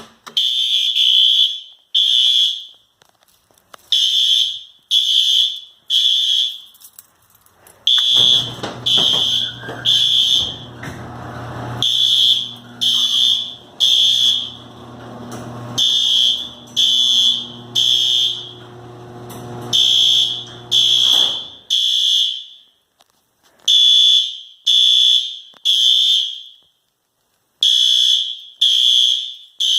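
Fire alarm sounder going off for a system test, beeping in the temporal-three evacuation pattern: three loud high beeps about a second apart, a pause, then the group again every four seconds. A low hum comes in about eight seconds in and stops a little after twenty seconds.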